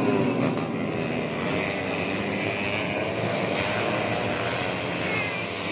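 Several 150cc four-stroke underbone racing motorcycles running hard at high revs, their engines overlapping in a steady drone with pitches rising and falling.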